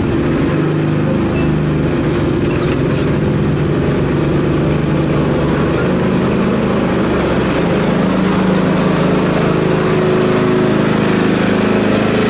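Small petrol engine of a miniature train running steadily at idle, with a low, even hum.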